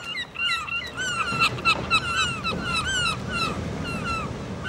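Small birds chirping: many short, quick chirps overlapping, several a second, over a low background rumble.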